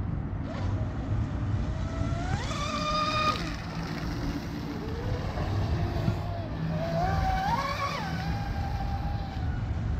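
Electric RC rigger boat running at high speed on a 6S battery, its motor and propeller whine climbing in pitch under throttle about two seconds in and again around seven seconds, then dropping away. A steady low rumble runs underneath.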